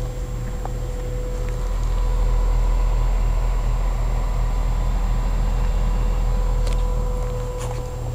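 A 2006 Bryant Evolution two-stage, 5-ton heat pump outdoor unit running in cooling mode: a steady hum from the compressor and condenser fan, with a steady whine over it. It grows louder about two seconds in and eases off near the end, and two light clicks come near the end.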